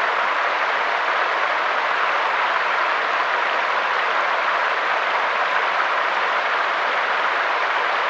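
Mountain stream flowing over rocks: a steady, even rush of water, more hiss than rumble.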